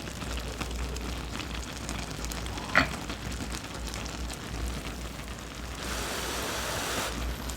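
Pot of budae jjigae (Korean army stew) bubbling and crackling at a simmer, with one sharp tap a little under three seconds in and the bubbling getting louder near the end.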